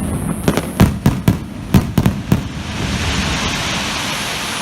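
Aerial fireworks bursting in a quick run of sharp bangs, about seven in two and a half seconds. From about three seconds in, a steady rushing hiss takes over and slowly fades.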